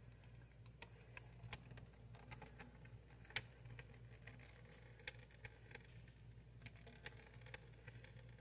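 Faint, scattered clicks and taps of an opened tuna can being tipped and pressed against a paper plate as its water is drained out, with one sharper tap a little over three seconds in.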